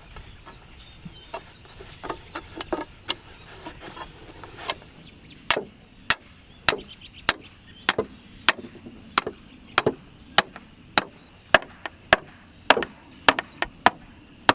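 Hammer blows on a steel drive rod, driving an arrowhead earth anchor into the ground. A few light, scattered taps come first; from about five seconds in there are steady, sharp strikes, roughly one every 0.6 seconds.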